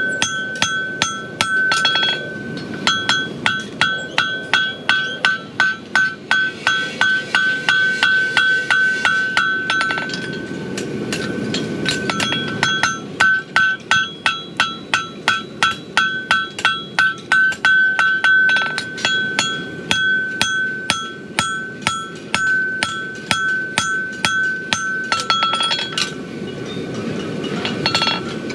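Farrier's hammer forging a steel horseshoe on an anvil: steady blows about two or three a second, each ringing with a clear metallic tone, with a pause of a couple of seconds a little over a third of the way in.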